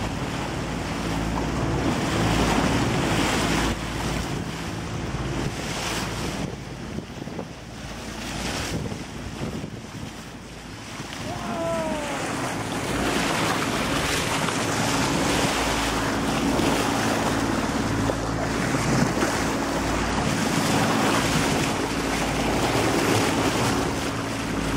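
Water rushing and splashing along a sailboat's hull at the bow, with wind buffeting the microphone and a faint steady low hum underneath. A short, high, falling squeak comes about halfway through.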